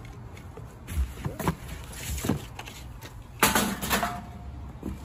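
Cardboard box and black sheet-metal charcoal grill parts being handled and shifted: a few short scrapes and knocks, the loudest about three and a half seconds in, followed by a brief ring. A low steady rumble runs underneath.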